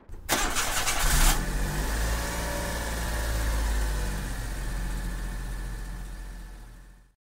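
Small pickup truck's engine starting: a short burst of cranking as it catches, then running steadily at low revs and growing fainter toward the end.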